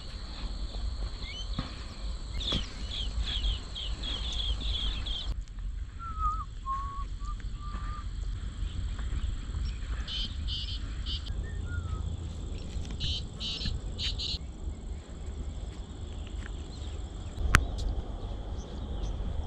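Insects trilling steadily in a high, even tone, with groups of short pulsed calls and a few brief chirps, over a low rumble of wind on the microphone. A single sharp click comes near the end.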